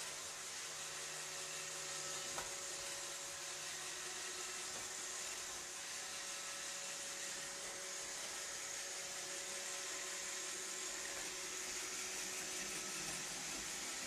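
iRobot Roomba 761 robot vacuum running across a wooden floor: the steady hiss of its vacuum motor and brushes, with a faint steady hum under it. A single light knock about two and a half seconds in.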